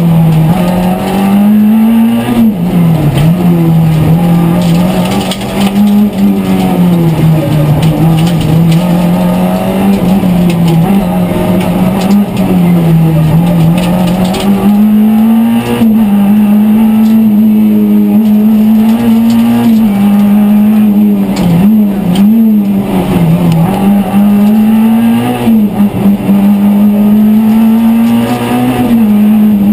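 Renault Clio Ragnotti Group A rally car's four-cylinder engine at full throttle, heard from inside the cabin: it runs high in the revs, climbing and dropping again and again through gear changes and corners, with a cluster of quick dips about two-thirds of the way through.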